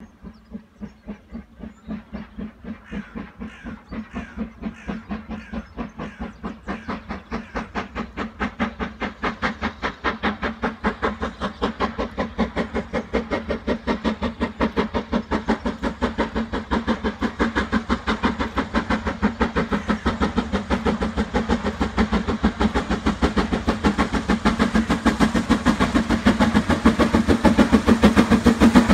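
Steam locomotive hauling a passenger train, its exhaust chuffing in an even rhythm of about two beats a second that grows steadily louder as it approaches.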